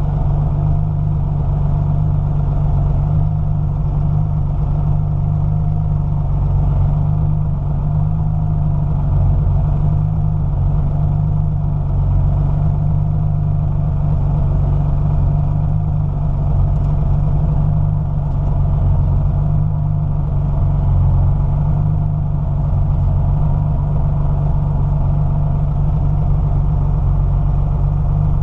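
Porsche 993's air-cooled 3.8-litre flat-six, a Mahle rebuild running on a MoTeC ECU, idling steadily.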